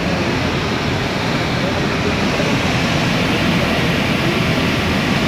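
Water gushing out under a raised dam spillway shutter: a loud, steady rush of falling water and spray.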